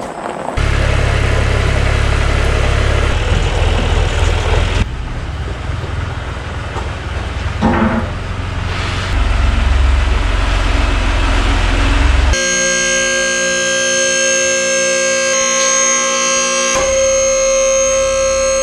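A low rumbling rush of noise, then, about twelve seconds in, an electric motor starts with a steady hum of several tones that runs unchanged until near the end: the hydraulic power unit of a Wildfire four-post car lift raising a pickup truck.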